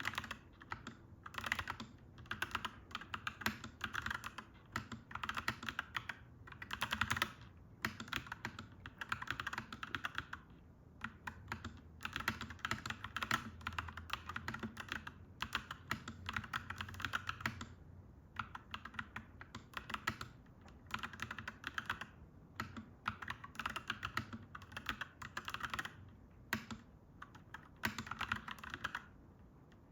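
Typing on a clacky mechanical keyboard: quick runs of keystrokes with short pauses between them, over a low steady hum.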